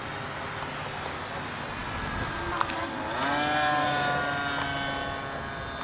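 Electric motor and propeller of a radio-controlled Cessna model plane whining in flight. The pitch climbs sharply about three seconds in and the sound grows louder, then the pitch slowly sinks. A single sharp click comes just before the climb.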